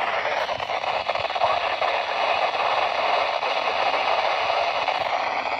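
Steady hiss of radio static from a weather radio receiver.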